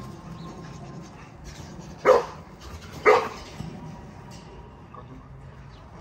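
American bully puppy barking twice, two sharp barks about a second apart, around two seconds in.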